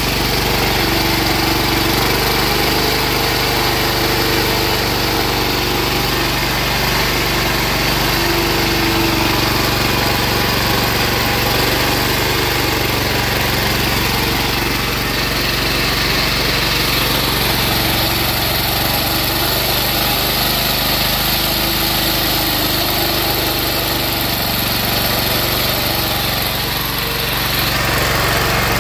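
Small air-cooled diesel engine, converted to run on woodgas at high compression, running steadily under about 3 kW of load.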